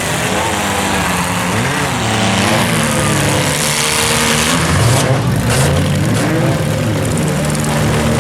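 Several compact demolition-derby cars' engines revving hard at once, their pitches rising and falling against each other as the cars accelerate and back off. A few sharp knocks come about five seconds in.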